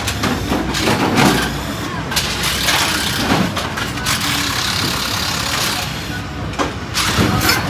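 Pit work on a Top Fuel dragster: hissing bursts of compressed air with clatter and knocks of tools. One long hiss runs through the middle, with shorter bursts about a second in and near the end.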